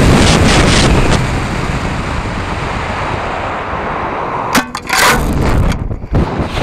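Onboard-camera audio of a hobby rocket in flight: a steady rush of air noise on the camera, broken by a sharp crack about four and a half seconds in and a short drop in level soon after.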